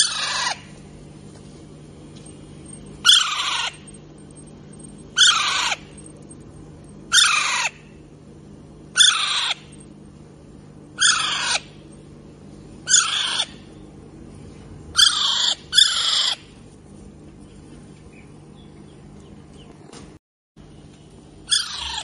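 Young Alexandrine parakeet calling over and over: about ten loud, short calls, each falling in pitch, roughly one every two seconds, with two in quick succession past the middle and then a pause of a few seconds before the last.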